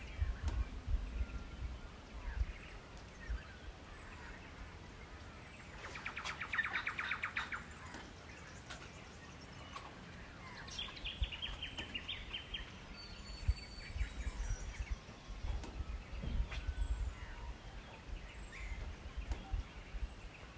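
Wild birds calling in bushland: a rapid rattling call of about two seconds starts some six seconds in, and a falling run of quick notes follows near eleven seconds. An uneven low rumble runs underneath.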